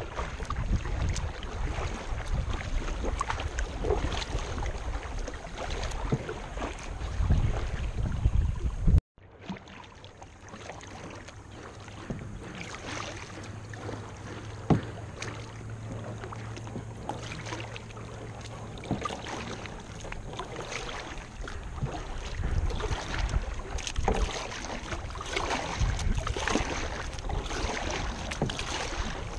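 Kayak paddle strokes dipping and splashing in river water, with wind rumbling on the microphone. The sound breaks off about nine seconds in and goes on quieter, the wind rumble mostly gone.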